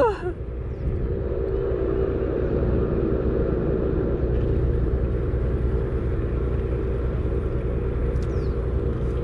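A boat's engine running steadily, a low, even rumble with a hum through it.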